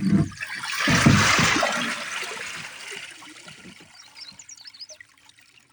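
Rainwater rushing out of a tipped-over canoe, with a couple of low knocks from the hull; the gush peaks about a second in and then fades to a trickle over the next few seconds.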